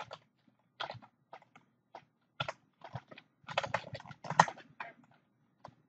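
Keystrokes on a computer keyboard: scattered single key taps, then a quicker run of several keys about three and a half seconds in.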